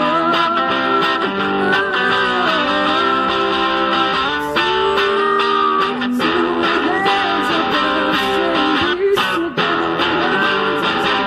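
Live electric guitar played through a small amplifier in a rock song, with held and bending melodic lines over the chords.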